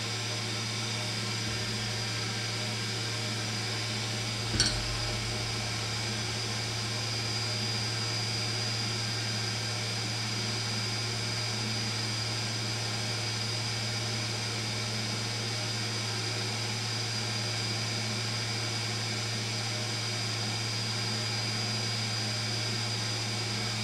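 Solder fume extractor fan running with a steady hum and a thin high whine. A single short click about four and a half seconds in.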